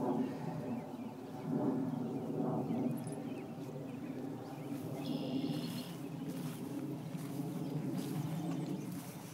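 Outdoor background: a steady low hum, with a brief high bird call about five seconds in.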